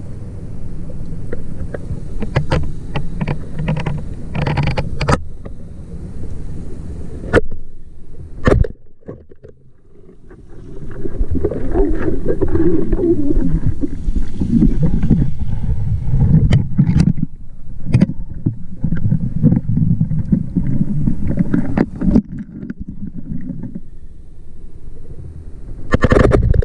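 Underwater noise picked up by a camera in its waterproof housing: a steady low rushing rumble of moving water, with scattered sharp clicks and knocks.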